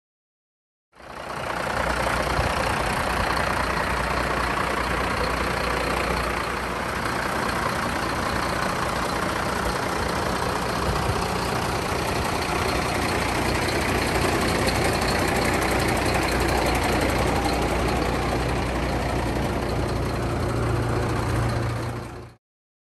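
Mercedes Axor skip truck's diesel engine idling steadily, with a lower note growing stronger in the last few seconds.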